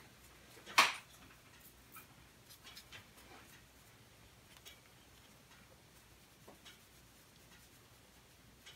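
A small brush scrubbing dust off a MacBook Pro logic board: one sharp scratch of the bristles about a second in, then faint light scratching and small ticks of handling.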